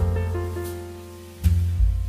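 Instrumental background music: sustained keyboard-like notes over a deep bass line, with a new bass note entering about a second and a half in.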